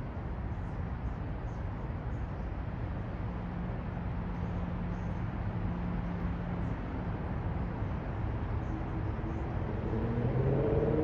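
Steady low rumble of city traffic, with a vehicle's engine hum swelling louder near the end.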